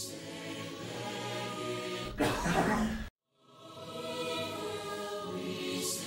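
Choir singing a held chord with music, cut into about two seconds in by a loud cough dubbed over it in place of the sung word "grow". The sound drops abruptly to silence for a moment, then the choir and music swell back in.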